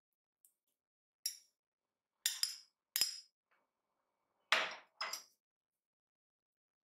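A metal spoon clinks several times against a small ceramic dish as cubes of cold butter are pushed off it into a glass bowl. Then the dish is set down on the counter with a louder clink about four and a half seconds in, followed by one more.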